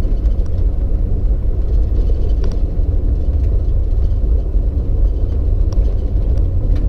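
Steady low rumble of engine and road noise heard from inside a moving vehicle, with a few faint clicks.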